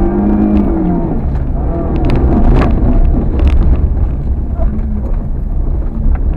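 Car engine heard from inside the cabin, revving up and down as the car is driven hard, over a heavy low rumble. A few sharp knocks come through about two to three and a half seconds in.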